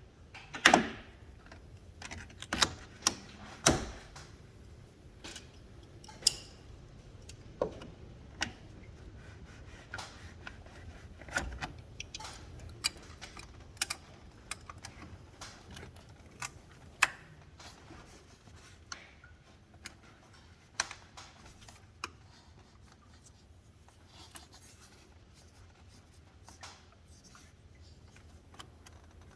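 Irregular metallic clicks, taps and knocks of hand tools working on the engine bay as the upper radiator hose is worked off, the loudest knock about a second in.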